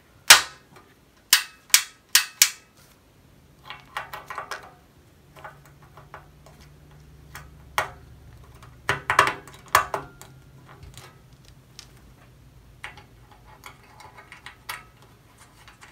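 Sharp clicks and knocks of plastic against a powder-coated steel panel as a rocker power switch is forced into its tight cutout, five sharp snaps in the first few seconds. Then scattered rattling clicks as a panel-mount fuse holder is pushed into its hole.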